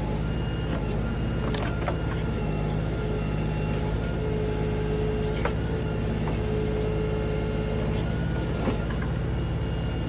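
LS XR3135 tractor's 35-horsepower diesel engine running steadily, with a few light clicks and knocks.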